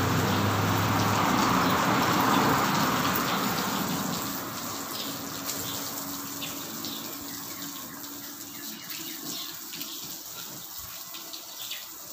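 Water from a garden hose spraying and splashing onto a concrete floor. The rush is loud for the first few seconds, then dies down to a fainter trickle and spatter.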